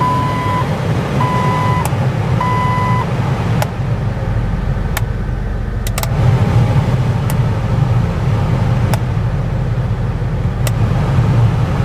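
2001 Jeep Wrangler running with its heater blower fan on, a steady low hum that grows stronger about six seconds in. A warning chime beeps three times at the start, and sharp clicks come every second or two, as the newly replaced blower speed switch is tried.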